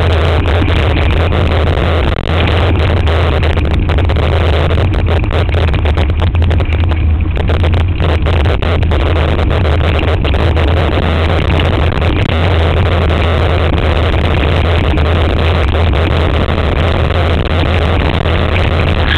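Steady low rumble of wind and handling noise on a handlebar-mounted camera's microphone while a mountain bike is ridden, with the rough rattle of the bike over the dirt trail.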